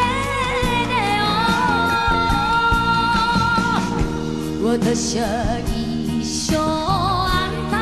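A woman singing a Japanese enka ballad live into a microphone, backed by an orchestra with strings. She holds one long note for about three seconds, then sings shorter notes with a wide vibrato.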